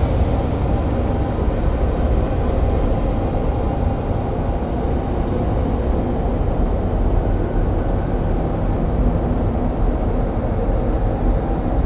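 Experimental noise-drone music: a dense, steady low rumble with a few faint held tones above it, no beat or melody.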